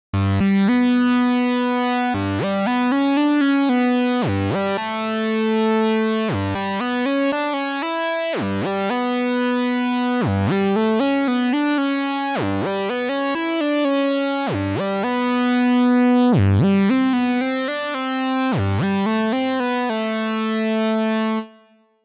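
IK Multimedia Syntronik J-8, a Roland Jupiter emulation, playing its bright "Saw 8-Osc Unison" sawtooth patch: a single melody line with notes gliding up and down in pitch. The phrase restarts after a short break about every two seconds and stops shortly before the end.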